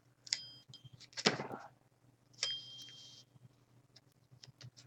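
Faint handling noises at a paper-craft table: a light click a little after the start and another about two and a half seconds in, each followed by a short high ringing, with a brief rustle between them.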